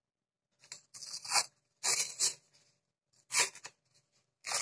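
Paper cupcake liner being torn and peeled away from a set dark chocolate cup, in four short rips about a second apart, the first about a second in.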